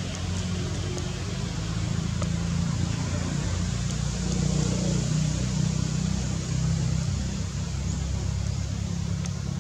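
A steady low motor hum with a hiss above it, swelling slightly about halfway through.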